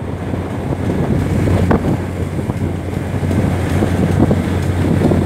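Wind buffeting the microphone over rough seas churning against a fishing boat's hull, with a steady low hum from the boat underneath.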